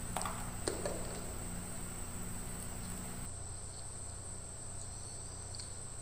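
Quiet background: a steady high-pitched whine over a low hum, with a few faint ticks in the first second.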